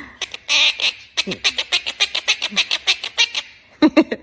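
A parrot squawking and chattering: a harsh squawk about half a second in, then a rapid run of short clicking calls, and two loud sharp calls near the end.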